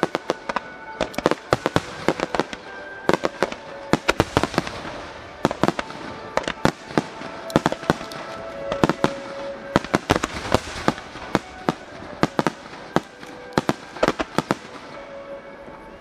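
Aerial fireworks shells bursting in a dense barrage, sharp bangs several a second and thinning slightly near the end, over music with held notes.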